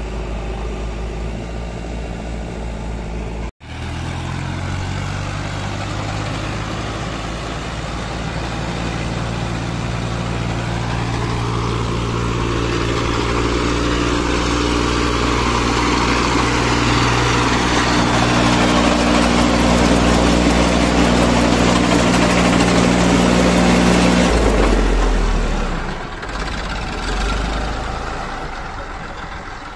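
Diesel engines running: at first the JCB 3DX backhoe loader's, then, after a brief dropout a few seconds in, the Massey Ferguson 1035 tractor's diesel running steadily and slowly growing louder. Its steady note stops about 24 seconds in, leaving a lower rumble.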